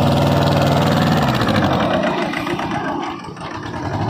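Mahindra Jivo 245 DI mini tractor's two-cylinder diesel engine running as the tractor is driven round in a turn. The steady engine note drops away about a second and a half in, is weakest around three seconds in, and comes back near the end.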